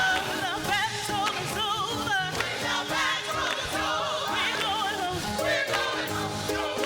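Gospel praise-and-worship song: singers' voices with vibrato over a steady instrumental accompaniment.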